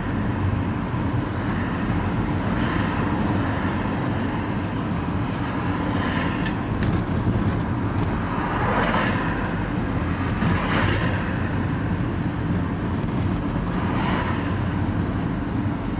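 Engine and road noise inside a van's cab while driving, a steady low rumble. Brief rushes of passing traffic rise and fade several times.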